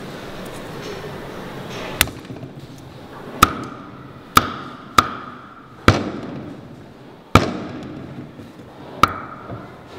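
Axe striking a wooden chopping board seven times at irregular intervals, chopping vegetable pieces. Each strike is a sharp knock with a brief ring, over a steady hiss.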